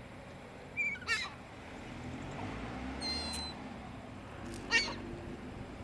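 Seagulls calling: three short, high-pitched mewing calls, about one, three and five seconds in, over low background noise.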